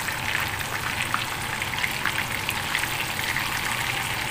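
Breaded chicken pieces shallow-frying in hot oil in a pan: a steady sizzle dotted with many small crackling pops.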